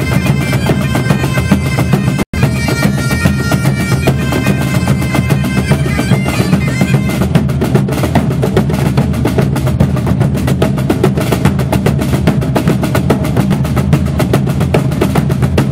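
Highland bagpipes and a band of big hand-and-stick drums with a snare drum playing a tune together; the pipes stop about seven seconds in and the drums carry on alone in a fast, driving rhythm. A brief dropout cuts the sound about two seconds in.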